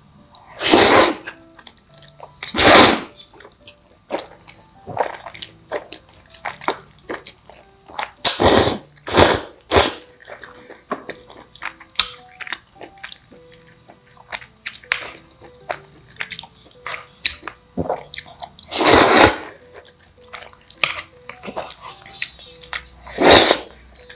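A person slurping jjajangmyeon (black bean sauce noodles) in loud noisy bursts, about seven times, with small clicks and chewing sounds between the slurps. Soft background music runs underneath.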